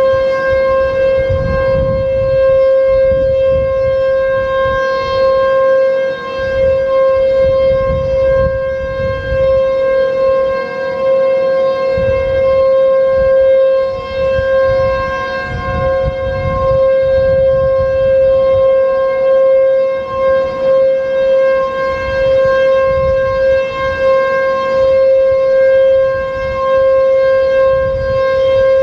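H.O.R. Super-Sirex 50 HP siren sounding a steady alert: one loud held pitch with strong overtones, wavering slightly in level as it echoes off surrounding buildings.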